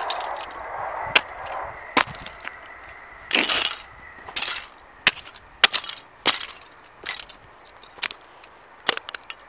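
Heavy New Rock boots stamping on broken plastic toy pieces: a string of sharp plastic cracks and snaps, roughly one a second, with two longer crunching scrapes between about three and five seconds in.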